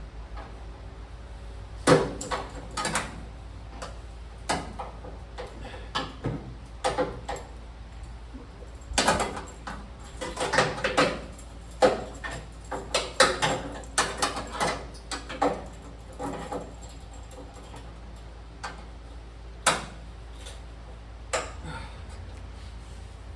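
Irregular metallic knocks and clunks of a sheet-metal roll pan being pushed and worked into place against a pickup's rear bodywork, with a busy run of taps through the middle and a few single knocks near the end.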